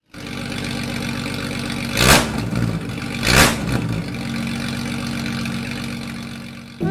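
Vehicle engine running steadily while driving, with two brief loud whooshes about two and three and a half seconds in, then fading near the end.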